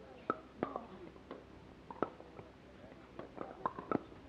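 Pickleball paddles striking a plastic pickleball in a rally: a run of sharp pocks, several seconds apart at first and then coming in quick succession near the end in a fast volley exchange.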